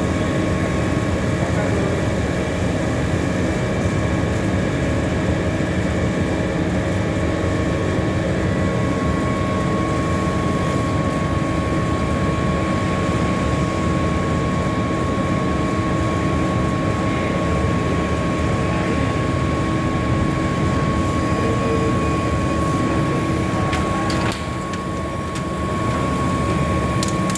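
CNC laser cutter running while cutting an acrylic panel: a steady mechanical hum with several constant whining tones, dipping in level for a moment about 24 seconds in.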